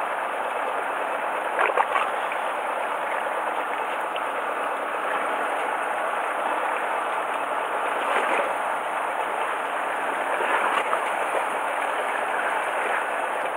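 Sea water washing and splashing steadily against the side of a fishing boat, with a few faint clicks.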